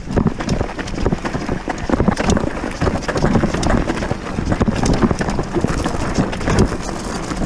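Boardman mountain bike clattering at speed over a rough, rocky descent with jumps: tyres crunching on stones and the bike jolting and rattling in quick irregular knocks, with wind buffeting the microphone.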